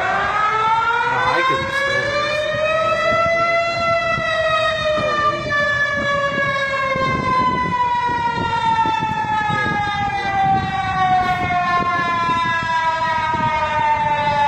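Emergency alert siren wailing: one rising tone with a strong set of overtones that peaks about four seconds in and then slowly falls.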